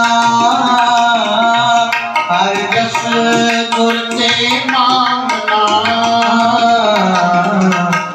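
Gurbani kirtan: a devotional hymn sung with tabla and harmonium accompaniment.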